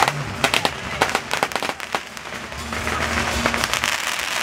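Firecrackers going off in rapid, irregular cracks, densest in the first couple of seconds and then thinning out.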